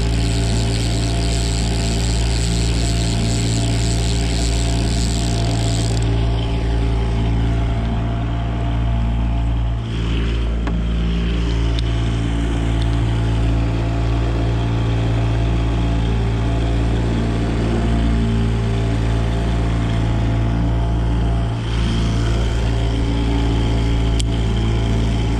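Boat motor running steadily at trolling speed, a constant low drone whose pitch does not change.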